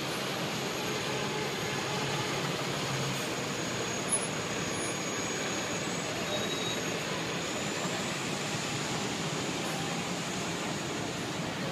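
Busy city street traffic: a New York City Transit bus and a shuttle minibus running at a bus stop while cars pass, making a steady engine and tyre noise. A faint high whine sits over it, and there is one short knock about four seconds in.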